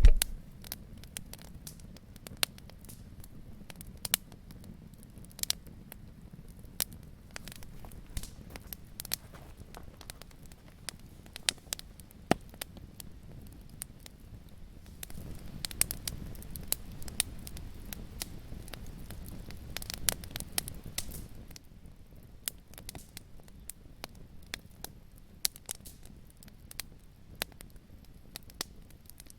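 Wood fire crackling in a fireplace: irregular sharp pops and snaps over a low, steady rush of flames, which swells louder about halfway through and then settles. A sharp thump at the very start.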